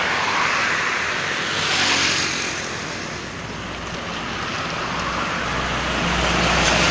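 Roadside traffic noise from heavy vehicles passing on a highway, a steady rush of engines and tyres. A deeper engine rumble builds near the end as a large vehicle approaches.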